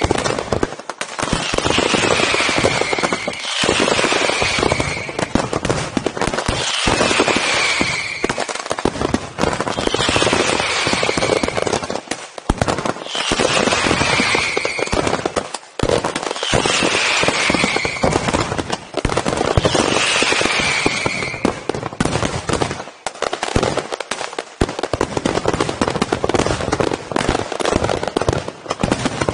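Pirotecnia Ricardo Caballer (RICASA) aerial fireworks in a dense, continuous barrage: overlapping shell bursts and crackling with almost no pause. A falling whistle recurs about every three seconds above the din.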